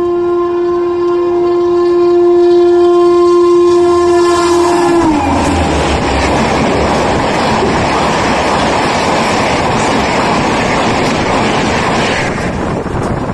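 Gatimaan Express locomotive sounding its horn in one long steady blast that drops in pitch about five seconds in as it passes. Then comes the loud rush and clatter of its coaches going by at speed, thinning near the end.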